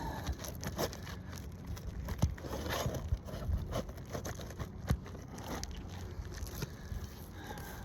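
Irregular scraping, crackling and a few sharp knocks from working a damaged roof shingle loose to pull it out, over a steady low rumble.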